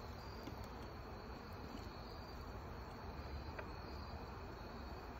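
Faint, steady insect sound: a thin high trill held over an even hiss, with a few faint ticks.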